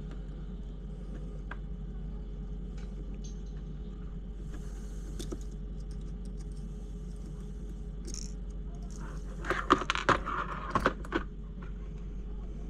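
Small metal hand tools and screws clinking and rattling: a few light ticks, then a quick cluster of sharp clicks and rattles about nine to eleven seconds in, over a steady low hum.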